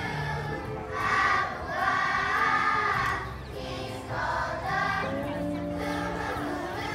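Children's choir singing with held notes, swelling louder from about one to three seconds in.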